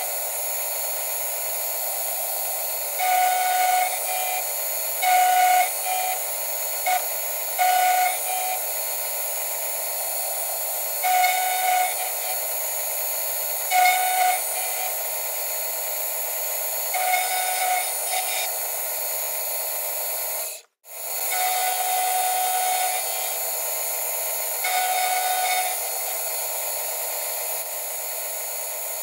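Milling machine end mill cutting an aluminium Honda CB450 crankcase, the footage sped up: a steady high hiss and whine, with short louder whines every second or two as the cutter bites. The sound cuts out for an instant about two-thirds of the way through.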